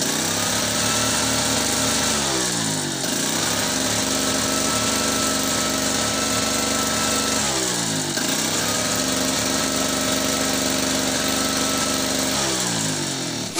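Small 950-watt portable generator's two-stroke engine running with a bulb on its output. Its speed sags and recovers three times, about every five seconds.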